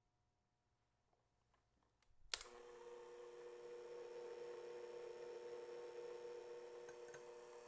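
Electric hand mixer switched on with a click about two seconds in, then running at a steady hum as its beaters whip egg whites into meringue.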